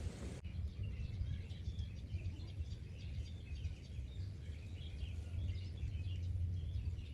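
Birds chirping, many short high calls scattered throughout, over a steady low rumble.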